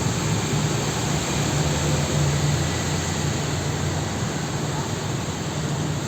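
Steady rushing noise of heavy rain and strong wind, with a low hum underneath.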